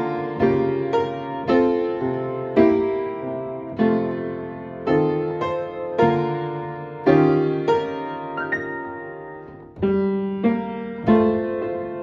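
Slow, gentle piano music: single notes and soft chords struck one or two a second and left to ring out.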